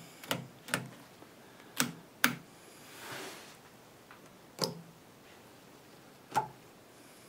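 Sharp, scattered clicks and knocks from handling a valve tester and its valves, about six in all, with a short soft rustle about three seconds in.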